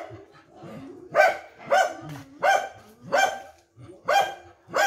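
Dog barking repeatedly: six sharp barks at a steady pace, a little under a second apart.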